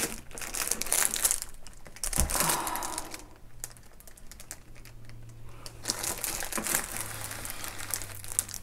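Plastic wrapping and cardboard packaging crinkling and rustling as a large, heavy boxed kit is shifted inside its shipping box. The crackling is loudest in the first couple of seconds, then settles to quieter, scattered rustling.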